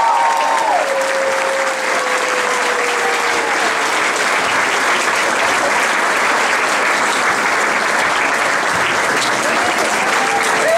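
Audience applauding steadily, with a few voices calling out over the clapping in the first few seconds and again near the end.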